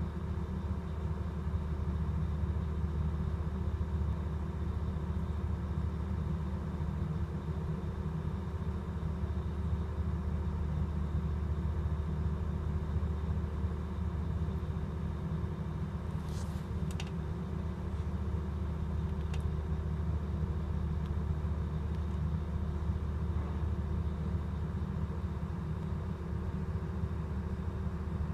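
Steady low drone of heavy marine diesel machinery running continuously, with a constant hum at several pitches. A few faint clicks come about two-thirds of the way through.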